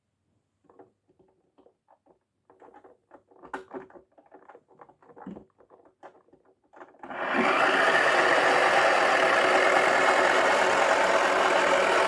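Faint clicks and knocks of a toy washing machine being loaded and handled, then about seven seconds in its small electric motor switches on and runs with a loud, steady buzz.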